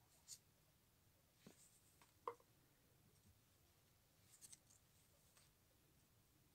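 Faint, occasional scrapes and soft clicks of Yu-Gi-Oh! trading cards being slid off a small hand-held stack one at a time, the sharpest about two seconds in and a quick cluster of them near the end.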